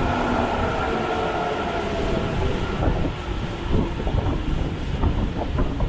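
Subway train running along the platform. A motor whine fades out in the first couple of seconds, leaving the rumble of the wheels, with clacks over the rail joints in the second half.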